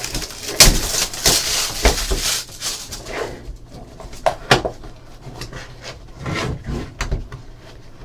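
Packaging being handled as a trading card hobby box is opened: cardboard and wrapping rustling and tearing, loudest in the first two seconds, then scattered knocks and rubbing.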